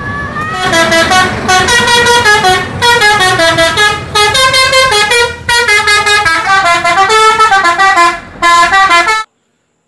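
Loud multi-tone musical horn on an Indonesian tour bus, the 'telolet' kind, playing a fast tune of changing notes in several phrases with short breaks. It cuts off suddenly near the end.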